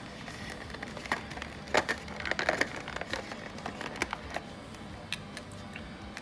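Light clicks and small knocks from handling a plastic wireless-earbud charging case with a magnetic lid, scattered and irregular, with a quick cluster about halfway through.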